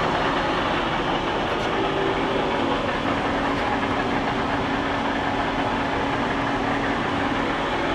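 Steady machinery running noise, an even rattling hum with a faint low tone held underneath it.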